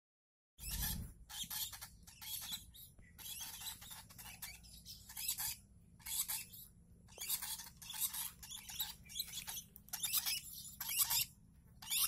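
Month-old lovebird chicks giving harsh, raspy begging calls in a rapid string of short bursts, the sound of chicks asking to be fed.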